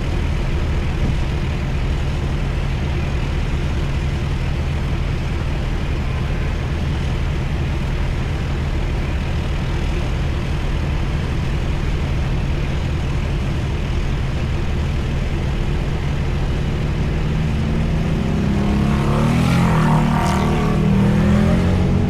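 Heavy-haul truck's diesel engine running under load with a steady low drone. From about eighteen seconds in, a louder sound with wavering pitch swells for a few seconds and then fades.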